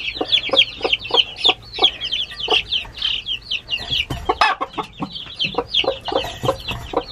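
Newly hatched chicks peeping continuously in quick, high, falling cheeps, several a second, with low clucks from the broody hen mixed in.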